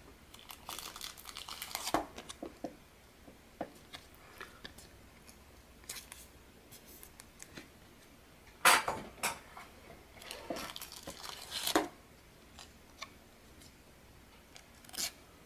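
Trading cards and clear plastic card sleeves being handled on a table: crinkly plastic rustles and light clicks, loudest in bursts in the second half.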